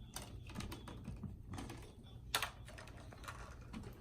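Light clicks and taps of plastic velcro toy fruit being picked up and handled, with one louder knock about halfway through.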